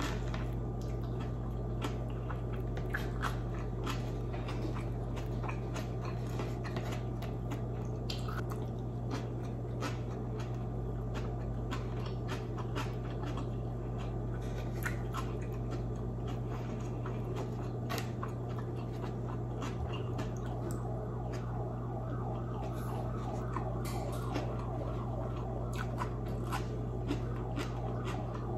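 Close-miked chewing and wet mouth sounds of someone eating squid and rice, with many small clicks and smacks, over a steady low hum.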